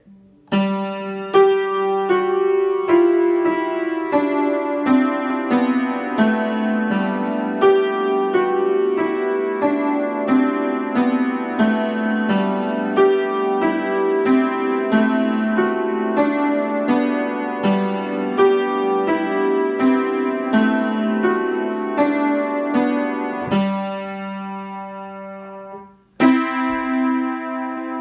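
Piano playing a tune in a steady run of struck notes and chords. The sound dies away about three-quarters of the way through, then a fresh loud chord strikes near the end.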